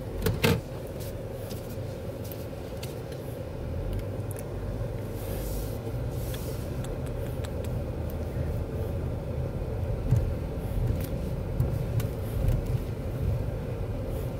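Car cabin noise from a car driving slowly: a steady low rumble of engine and tyres with a faint steady hum. A couple of sharp knocks sound about half a second in.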